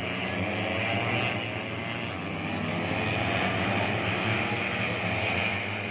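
Engines of 150cc four-stroke underbone racing motorcycles running hard on the circuit, a steady mixed engine drone with faint shifts in pitch.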